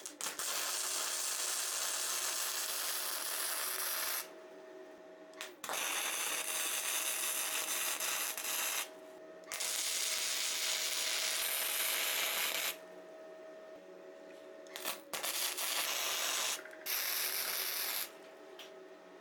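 A power tool grinding or sanding scrap steel: long stretches of loud rasping noise broken by short pauses, while a steady motor hum carries on through the pauses. Near the end the grinding comes in shorter bursts.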